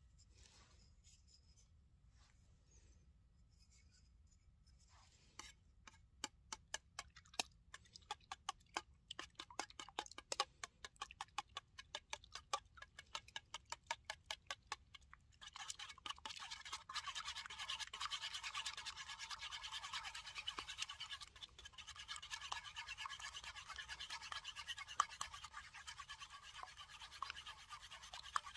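Wooden spork beating eggs in a small metal cup. From about five seconds in it strikes the cup in a run of separate clicks, then from about halfway it turns to fast, continuous whisking, scraping and clicking against the metal.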